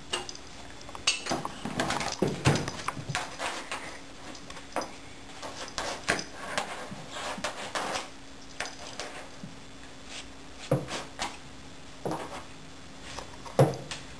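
A cat batting a fridge magnet about on a refrigerator door: irregular clicks, taps and light clatters of the magnet and her paws against the metal door, some louder knocks among them.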